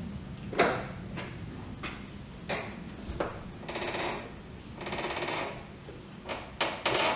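Rear liftgate of a third-generation Toyota 4Runner being unlatched and raised on its worn support struts: sharp clicks and knocks from the handle and latch, two longer noisier sounds about four and five seconds in as the gate swings up, and a few more knocks near the end.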